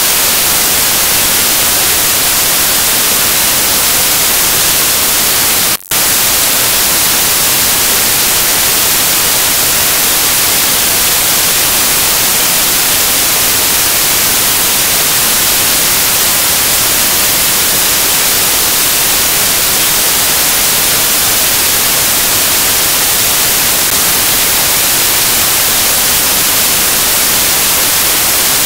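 Loud, steady electronic static hiss, even and unbroken except for a brief dropout about six seconds in.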